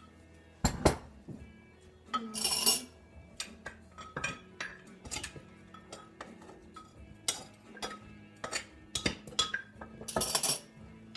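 A spoon clinking and scraping against dishes, with irregular sharp clinks and two longer scrapes, one about two seconds in and one near the end.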